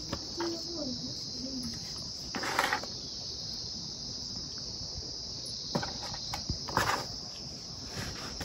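A steady high-pitched drone of insects, with a few short rustles about two and a half, six and seven seconds in as lumps of white clay are broken apart by hand in a plastic tub.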